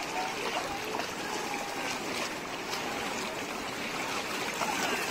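Shallow, rocky river rushing steadily, with water splashing around legs wading through the current.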